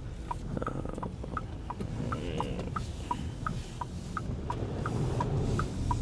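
Car turn-signal indicator ticking in an even two-tone tick-tock, about three ticks a second, over the low rumble of the moving car inside its cabin.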